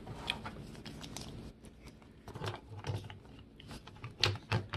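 Plastic puzzle pieces of a 2x2 star cube clicking and tapping as they are twisted and pushed together by hand, with scattered faint clicks and a few sharper knocks near the end.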